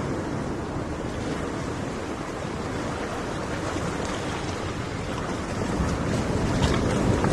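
Ocean surf washing on a shore, a steady rush of water that swells louder near the end as a wave comes in.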